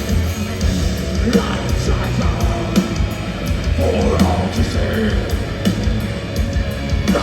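A heavy metal band playing live and loud, as heard from the crowd.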